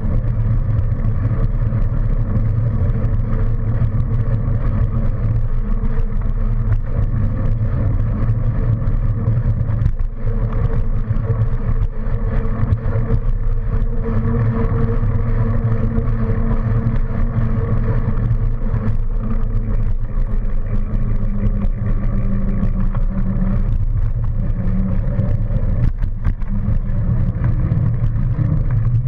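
Steady low rumble of wind buffeting a moving camera's microphone while riding along a paved path, with tyre noise and a faint hum underneath.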